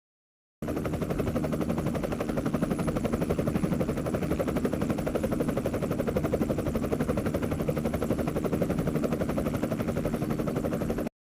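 Helicopter rotor sound effect: blades chopping in a fast, even rhythm. It starts abruptly about half a second in and cuts off suddenly near the end.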